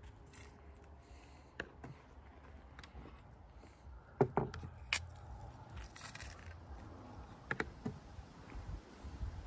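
Garlic press squeezing cloves into a bowl: scattered sharp clicks and scrapes, the loudest about four and five seconds in.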